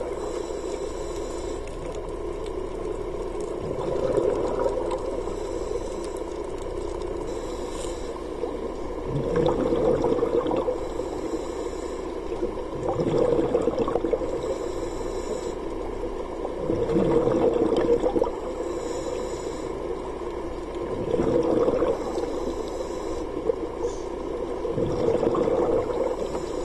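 Scuba diver breathing through a regulator underwater: a hiss on each inhale, then a bubbling rush of exhaled air, about every four seconds.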